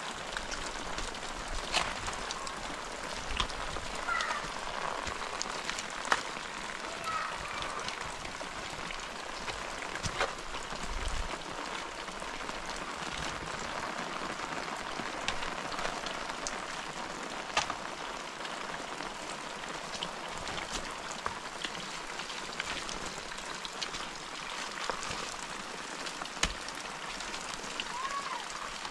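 Steady rain falling, with scattered sharper drops and drips standing out over the even hiss.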